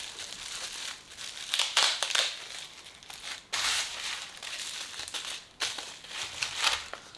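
Wrapping being crinkled and pulled open by hand to unwrap a packaged cosmetic item, in irregular rustling bursts.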